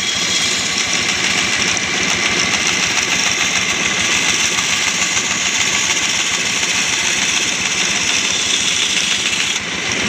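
Homemade wooden-framed bandsaw running steadily, its blade cutting along a curve through a wooden board.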